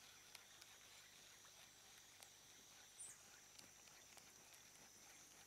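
Near silence: faint riverside ambience with a thin, steady high-pitched whine and a few faint ticks.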